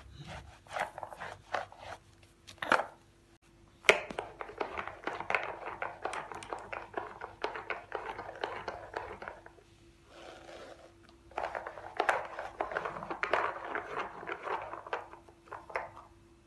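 Purple plastic handheld roller brush being pushed and handled on a rug, giving rapid plastic clicking and rattling. There are a few separate clicks at first, then two long runs of dense clicking with a short lull between them.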